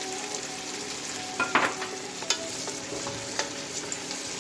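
Peas, onion and freshly added green beans sizzling in oil in a metal pot while a wooden spatula stirs them, with a few sharper scrapes of the spatula against the pot, the loudest about a second and a half in.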